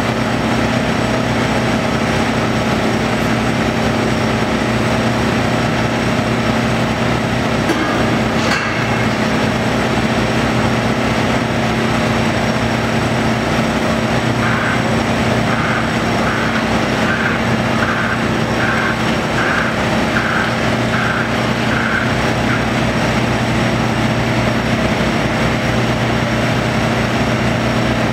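Tracked demolition excavator's diesel engine and hydraulics running steadily under load. There is one short clank about a third of the way in, and a run of about ten evenly spaced warning beeps around the middle.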